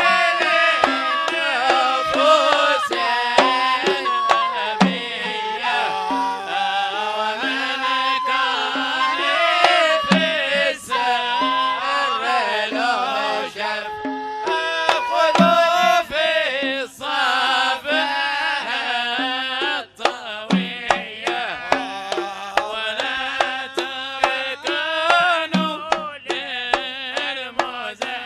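Middle Eastern band music: a wavering melody line over steady hand-drum percussion.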